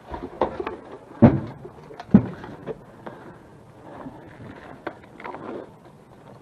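Scattered clicks and knocks, with two louder thumps about a second and two seconds in.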